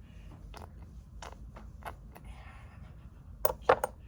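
Scattered small clicks and taps of objects being handled, with a louder quick run of three sharp clicks near the end.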